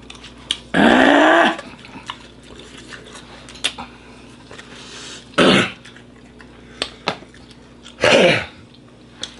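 A person coughing three times while eating very hot chili-sauce wings, a reaction to the burning spice: one short cough about a second in, then two more a few seconds apart, the last two dropping in pitch.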